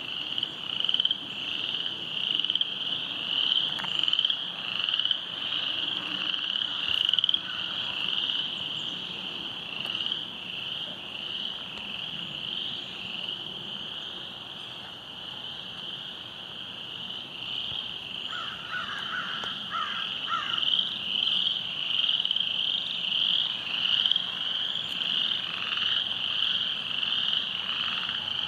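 A dense chorus of many frogs calling together: a continuous, high-pitched mass of short, rapidly repeated calls. A lower, quicker pulsing call joins in briefly about two-thirds of the way through.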